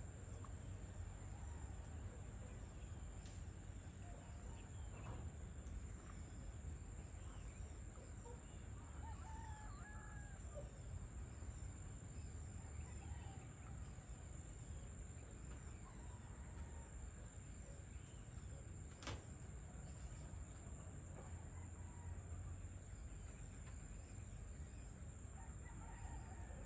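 Faint outdoor ambience: scattered distant chirps from chickens and other birds over a steady low rumble and a constant high-pitched tone. One sharp click about nineteen seconds in.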